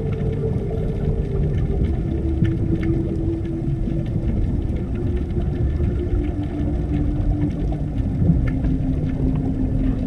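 Underwater ambience: a deep, steady rumble with a long drawn-out tone over it that slowly steps down in pitch.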